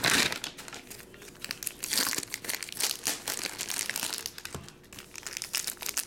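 Plastic and foil trading-card pack wrapping crinkling in irregular bursts as hands handle it, with small sharp crackles in between.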